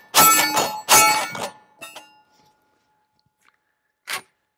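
Two 12-gauge shotgun blasts from a Dickinson Commando pump-action firing Remington Double-Up buckshot, about a second apart, each trailing off with a ringing. A short, quieter sound follows near the end.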